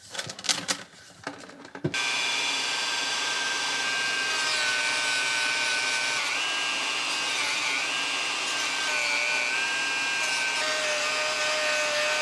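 Handheld power tool cutting into a sealed plastic battery case, running steadily with its pitch dipping slightly now and then under load. It starts abruptly about two seconds in, after a few clicks and scrapes of handling.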